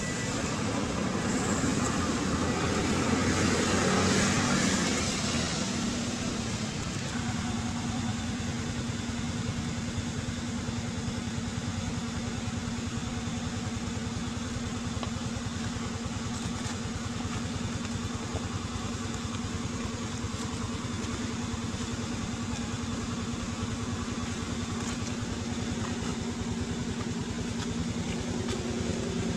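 Motor traffic on a road: a vehicle passes about two to five seconds in, and a steady engine hum of constant pitch follows.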